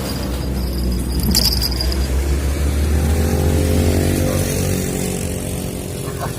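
A motor vehicle passing over a steady low rumble of traffic, its engine note rising about three seconds in and fading away. A single sharp click sounds just over a second in.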